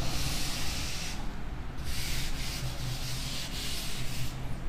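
A blackboard duster rubbing chalk off a chalkboard in several long wiping strokes with short pauses between them.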